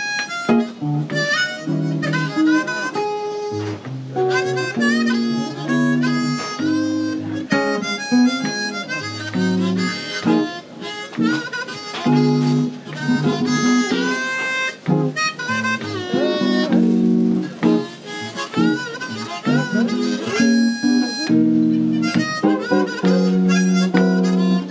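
Harmonica playing a slow melody with bent, wavering notes over guitar chords, a live harmonica and guitar duo.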